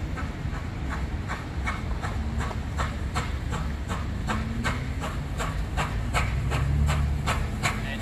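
Steam locomotive 3801, a NSW C38 class Pacific, working towards the listener: sharp exhaust chuffs about three a second, quickening slightly, over a low rumble that swells near the end.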